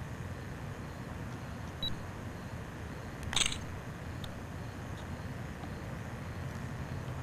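Steady low outdoor rumble, with a faint short blip a little before two seconds in and a short sharp click about three and a half seconds in.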